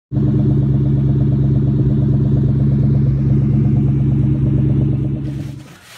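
Ford Mustang Cobra's V8 idling with a steady, rhythmic exhaust rumble, fading out near the end.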